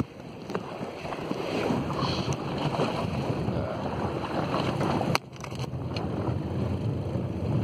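Wind buffeting a phone's microphone aboard a fishing boat at sea, over a steady low rumble and the wash of water along the hull. The sound briefly cuts out about five seconds in.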